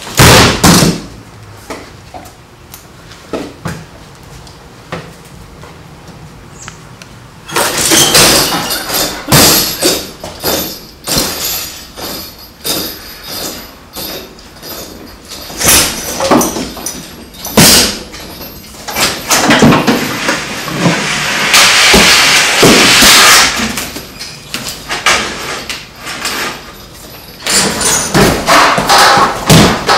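Expandable batons striking padded training gear: a string of loud, sharp, irregular impacts, with a quieter stretch of several seconds after the first hit.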